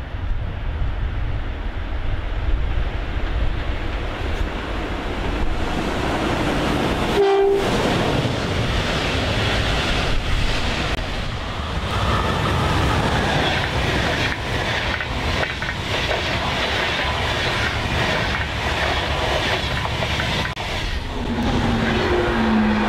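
Electric trains passing on wet track in rain: a steady rolling rumble with wheel clatter, recorded across more than one pass. A brief horn-like tone sounds about 7 seconds in, and short tones come again about a second before the end.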